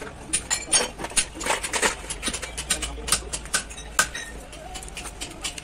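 Irregular light clicks and clinks of metal truck differential parts and rings being handled and shifted in a metal pan, several a second.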